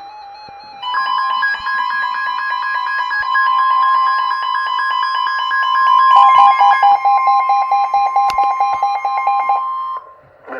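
Weather radio warning alert: a loud electronic alarm tone pulsing rapidly, its pitch shifting partway through. It starts about a second in and cuts off about a second before the end.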